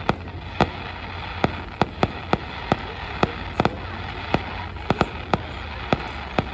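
Fireworks going off in a rapid, irregular series of sharp bangs, about two to three a second, over a steady hiss of background noise.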